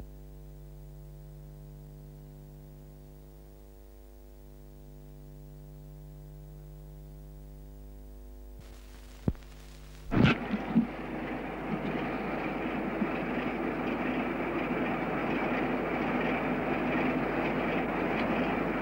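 A steady low hum for about nine seconds, then a sharp click and a few loud thumps just after ten seconds, followed by a steady rumbling noise.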